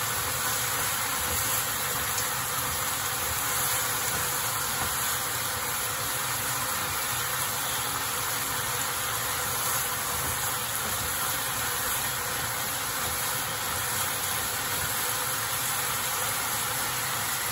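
Zenmai fern shoots sizzling steadily in oil in a frying pan as they are stir-fried.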